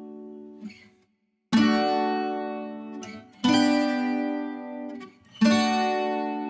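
Music: slow strummed guitar chords, each left to ring and fade. After a brief silence about a second in, three chords are struck about two seconds apart.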